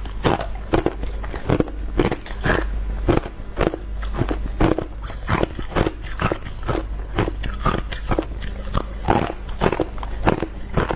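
Hard clear ice being bitten and crunched between the teeth close to the microphone: a rapid, continuous run of sharp cracks, about three a second.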